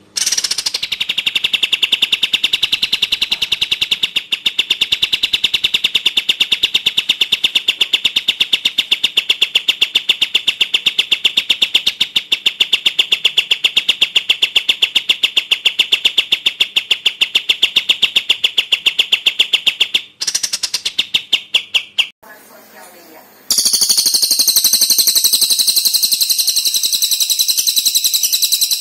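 Songbird calls on a bird-training recording: a long, fast, even rattle of sharp notes held for about twenty seconds, a brief break and a short second burst, then after a short pause a different, higher, steadier trill.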